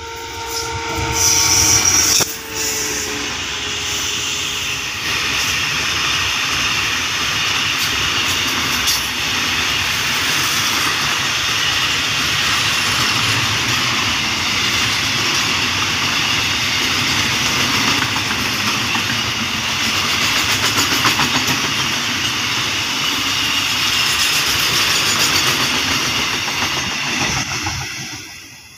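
A diesel-electric freight locomotive hauling a long container train passes close by, loudest about one to two seconds in. It carries a steady tone that drops slightly in pitch as it goes by. The string of loaded container flatcars then rolls past with a steady rattle and clatter of wheels on the rails, fading away near the end.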